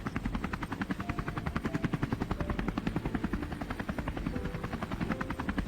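Helicopter rotor chopping with a fast, even beat over the engine's steady rumble, heard from inside the cabin as the helicopter takes off.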